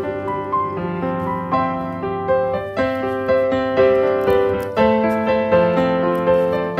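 Background piano music: soft notes and chords played at an unhurried pace, each note struck and fading.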